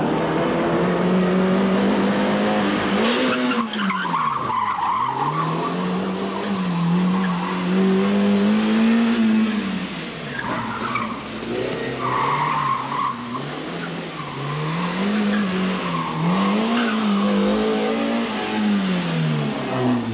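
Toyota Starlet hatchback's engine revving hard, its pitch climbing and dropping again and again as the car is flung between cones, with several short bursts of tyre squeal in the turns.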